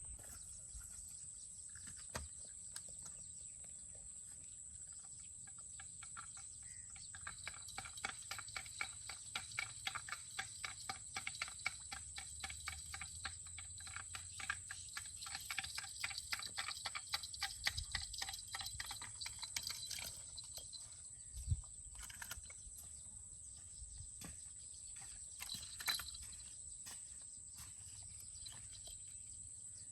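Outdoor animal calls: a steady high-pitched drone throughout, joined from several seconds in by a fast, even rattling call that fades out about two-thirds of the way through, with a few scattered knocks.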